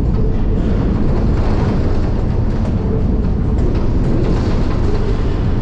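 Moving freight train heard from inside an open freight car: a loud, steady rumble of wheels on rail, with light rattles from the car body.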